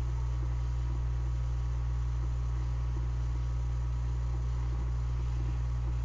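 Steady low electrical hum, mains hum on the recording, with no other clear sound.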